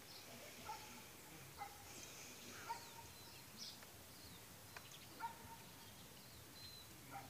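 Near silence with scattered short bird chirps and twitters.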